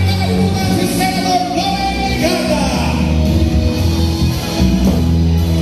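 Loud music with a singing voice over a steady, heavy bass line.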